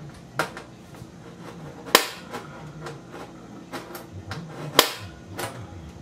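Spring-loaded automatic center punch snapping into a sheet-aluminum PC case panel, marking drill points: four sharp snaps, the loudest about two seconds in and near five seconds in, with lighter ticks between.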